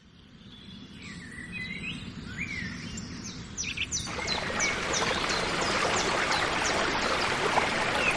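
Nature ambience of birds calling over running water, fading in from silence. About four seconds in, the water becomes a louder steady rush with a series of short high chirps above it.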